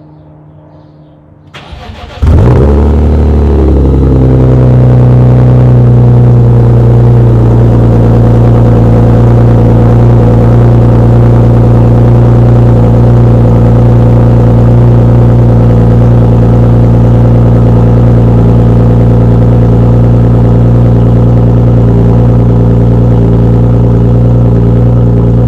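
BMW E46 M3's S54 inline-six cold-starting through a new aftermarket Top Speed muffler: a short crank, then the engine catches about two seconds in with a brief rev flare and settles into a steady, loud high idle.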